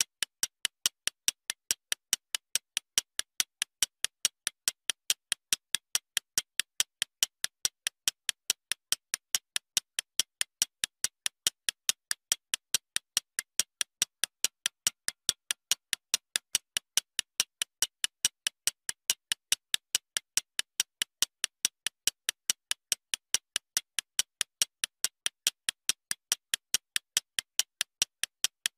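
Countdown timer ticking sound effect: sharp, high clicks at a steady pace of about three a second.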